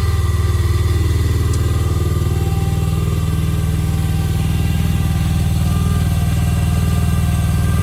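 Vicsec VC13C mini excavator's small choke-started engine running steadily, a low drone with a rapid even beat of firing pulses, still warming up after a cold start. The low drone fills out slightly about two seconds in.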